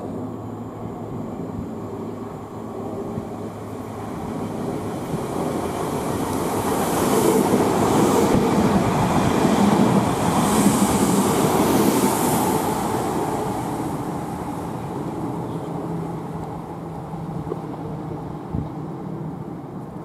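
Train passing on the line, the rumble and wheel-on-rail noise building up to a peak about halfway through and then fading away.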